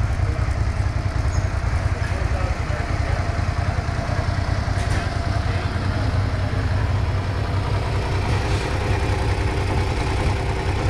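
Suzuki SV650S's 645 cc 90-degree V-twin idling steadily, a low, even throb.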